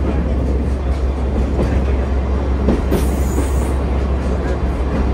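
Sightseeing train heard from inside its open-sided carriage while running: a loud, steady low rumble of the running gear with occasional clacks of the wheels, and a brief high squeal of the wheels about three seconds in.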